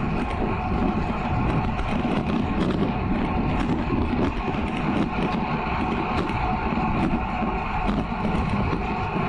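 Road bike ridden fast on a smooth tarmac runway: a steady rush of wind over the action camera's microphone, with the hum of the tyres on the surface.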